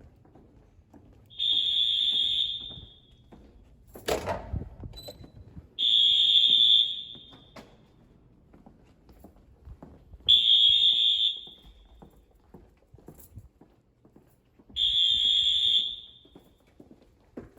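First-generation Wheelock AS fire alarm horn sounding in separate high-pitched electronic blasts, each about a second and a half long, four times at roughly four-second intervals. A loud thump comes about four seconds in.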